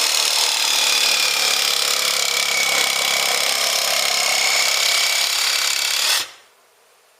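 Power tool running steadily at a constant pitch, then switched off abruptly about six seconds in.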